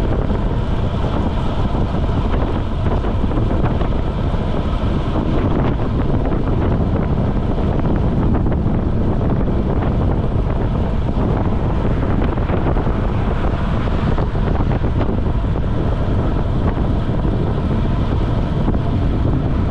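Wind rushing over the microphone of a camera mounted on a road bike moving at about 30 mph, a loud, steady noise heaviest in the low end.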